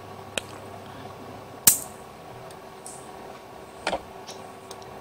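Small sharp clicks and taps of tiny metal parts being handled on a board: micro bearings and a small steel tool tapping and being set down. The loudest click comes a little under two seconds in, and a quick double click comes near the end.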